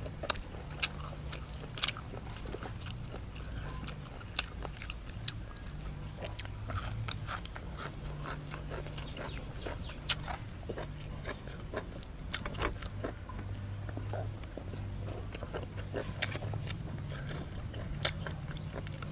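A person chewing and biting blanched beef shank close to the microphone, with many sharp wet mouth clicks and smacks scattered throughout, over a low steady hum.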